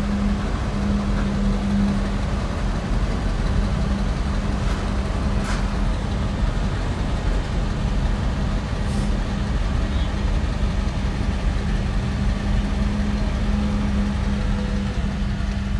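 Steady low engine drone with a constant low hum running under it, as a car ferry docks. There are a few faint clicks near the middle.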